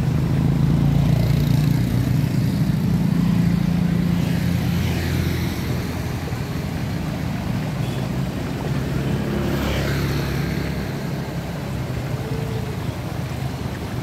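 A motor vehicle's engine running steadily as a low hum, a little quieter in the second half.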